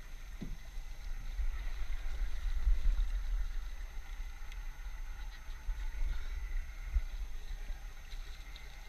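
Wind rumbling on the microphone over water lapping against the side of a small open boat.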